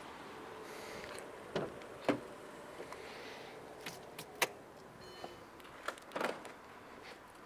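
Sharp clicks and knocks from an MG3 hatchback's door being opened and handled: two a couple of seconds in, another a little past halfway, and a quick pair near the end, over a faint steady background hiss.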